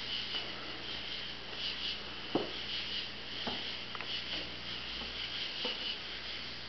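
Insects chirping in a steady, high, pulsing trill, with a few soft taps, the loudest about two and a half seconds in.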